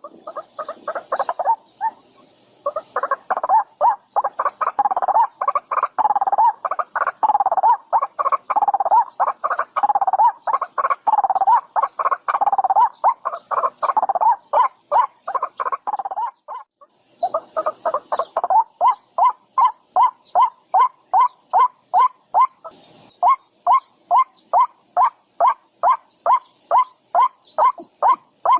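An animal calling in a long run of short, evenly repeated notes, briefly stopping about two-thirds of the way through and then going on at a steady two to three notes a second.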